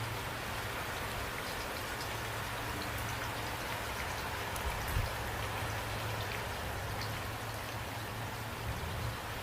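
Steady rain falling, an even hiss with scattered drops ticking on a surface, over a low rumble, with one soft low thump about five seconds in.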